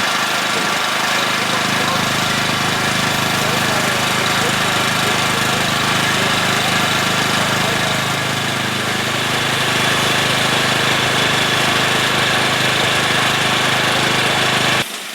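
An engine running steadily at a constant speed, a continuous loud drone that drops away suddenly just before the end.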